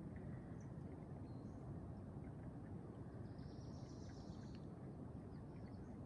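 Quiet rainforest ambience: a steady low rumble with faint scattered ticks, and a faint high bird call lasting about a second a little past halfway.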